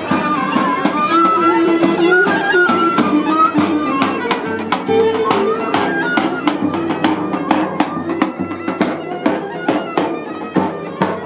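Live folk music from a marching group: a reedy melody with plucked tamburas, joined about five seconds in by steady strokes on a large double-headed drum.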